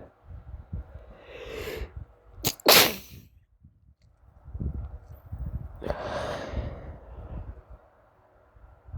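A sneeze: a rising in-breath, then a short, sharp, loud burst about three seconds in. A longer, weaker breathy sound follows about six seconds in.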